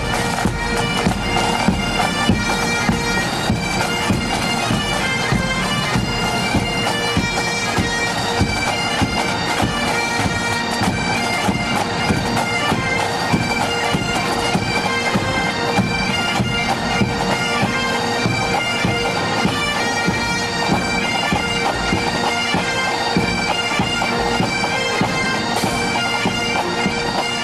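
Highland bagpipes playing a quick tune over their steady drones.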